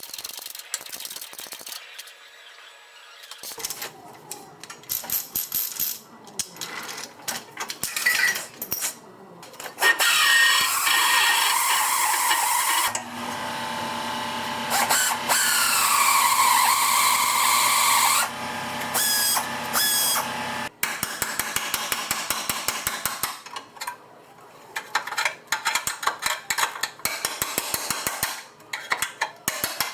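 Auto body shop work with hand and power tools, in several abruptly changing stretches. A power tool runs with its whine wandering up and down in pitch, and there are runs of rapid, evenly spaced tapping and knocking.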